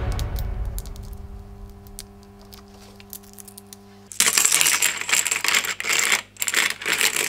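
Background music fading out on a few held low notes, then a loud rattling clatter of plastic brick tank-track links dropping onto the model tank's hull: many quick clicks for about three seconds.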